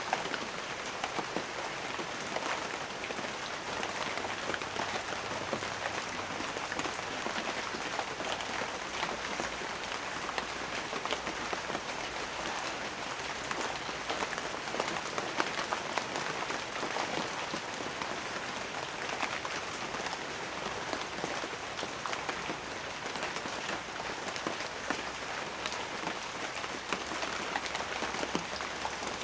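Steady rain, a dense patter of raindrops falling on a surface with many small individual drop hits.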